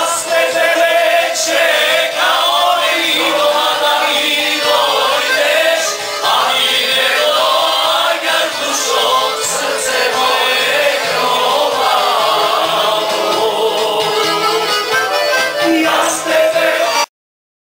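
A group of people singing along to loud dance music as they dance in a hand-held line; the music cuts off abruptly near the end.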